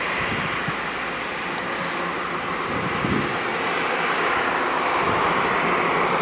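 Rolls-Royce Trent 7000 turbofans of an Airbus A330-900neo running while the airliner lines up on the runway: a steady jet engine noise that grows slowly louder toward the end.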